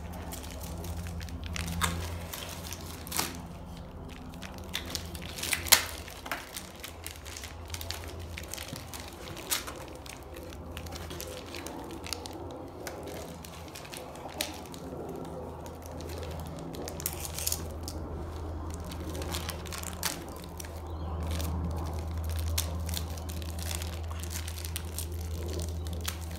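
Crinkling and tearing of a foil packet being opened by hand, with scattered sharp clicks of small plastic parts being handled, over a steady low hum.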